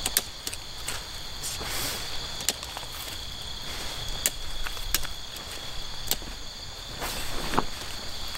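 Crickets chirring in a steady high-pitched drone, with scattered sharp clicks and knocks and two short rustling swishes, about two seconds in and near the end.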